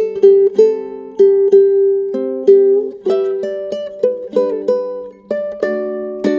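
Low-G-tuned ukulele played solo fingerstyle: single plucked melody notes mixed with pinched chords, a few notes a second, each ringing and fading before the next.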